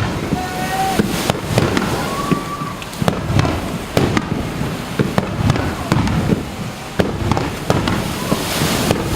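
Aerial fireworks display: a rapid, continuous string of sharp bangs and crackling bursts, several per second.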